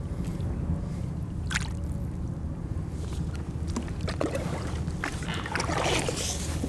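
Sea water sloshing against a kayak with a steady low wind rumble on the microphone. There are a few small knocks, and a brief splashing rush near the end.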